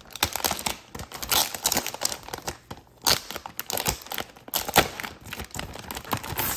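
Clear plastic packaging bag crinkling irregularly as it is handled and opened and a cardboard backing card is pulled out, with a few louder crackles.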